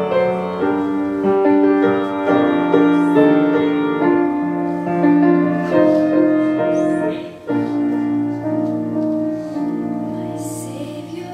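Grand piano playing a slow hymn in sustained chords, breaking off briefly about seven and a half seconds in before the playing resumes.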